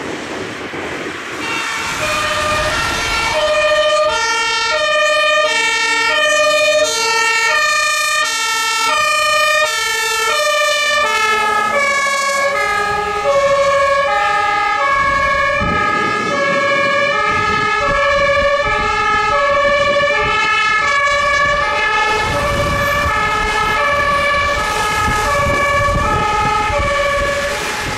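Two-tone sirens of passing fire engines, alternating steadily between a high and a low tone, with the tones shifting lower about eleven seconds in. Truck engine and tyre noise on the wet road swells twice, near the middle and toward the end.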